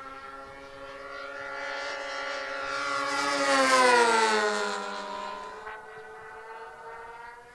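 Two OS 46AX two-stroke glow engines of a twin-engine model racer at high speed in a flypast. The engine note swells to its loudest about four seconds in, then drops in pitch as the plane goes past and away.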